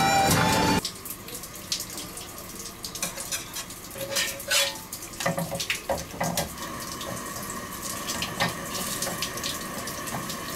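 Music cuts off under a second in, then a steady hiss from the gas burner under an iron pan, with a metal spatula scraping and pressing a roti in the pan.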